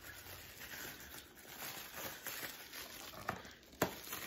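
Quiet handling of packaging: faint rustling of a plastic wrapper, with two short clicks about half a second apart near the end.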